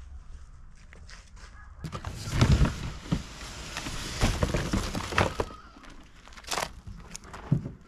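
Cardboard packaging being handled and pulled open: rustling and scraping with a dull thump about two and a half seconds in, then a few sharp clicks near the end.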